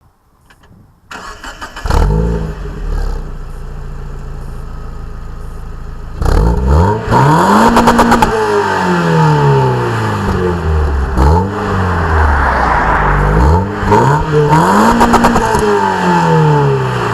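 Decatted 2003 Mazda MX-5's four-cylinder engine and exhaust, catalytic converter replaced by a straight pipe: it cranks and starts about a second in, idles steadily for a few seconds, then is revved up and let fall back several times.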